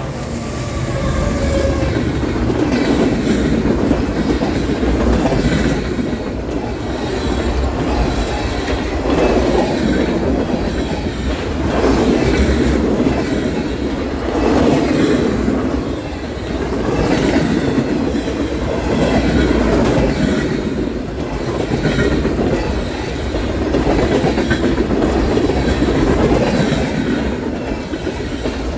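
Freight train of flatcars rolling past close by: a steady rumble of steel wheels on rail with clickety-clack over the rail joints, swelling about every two and a half seconds.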